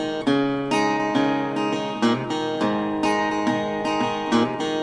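Acoustic guitar strumming chords in a steady rhythm, about two strums a second.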